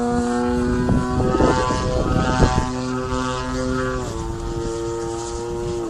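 Radio-controlled Extra 330S aerobatic model plane flying, its motor and propeller droning at a steady pitch that shifts with the throttle and drops about four seconds in. Wind buffets the microphone underneath.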